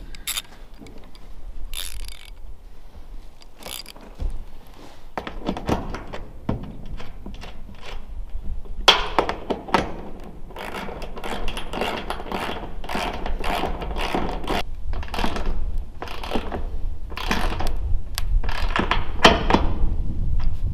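Metal clicks and clinks of a 9/16-inch box-end wrench working a bolt on a truck's steel rack. The clicks are scattered at first, then come in a quick run through the second half, over a steady low rumble.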